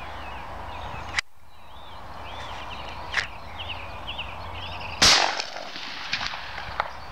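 A single shotgun shot about five seconds in, a sharp crack with a short ringing tail, the loudest sound here. A smaller sharp click comes about a second in, and small birds chirp in between.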